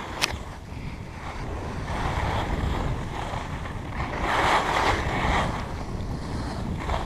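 Wind buffeting the microphone of a skier's camera, with skis hissing over packed snow; a sharp tick comes just after the start, and the ski-on-snow hiss swells loudest for about a second and a half around the middle, as in a carved turn.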